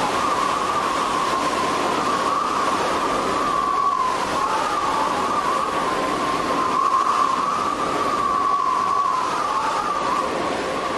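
Howling wind: a steady rush with a whistle that wavers slightly in pitch.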